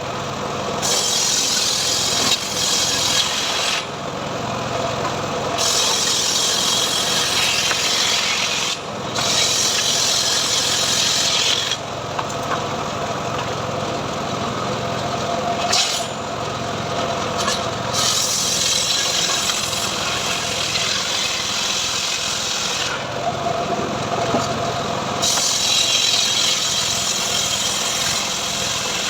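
Engine-driven homemade srekel sawmill ripping a teak log into boards: the machine runs steadily while the blade's cutting noise rises and drops away every few seconds.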